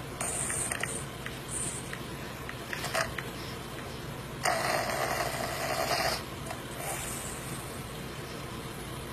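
A person snoring, with a short breath near the start and one longer snore about halfway through, over a steady low hum.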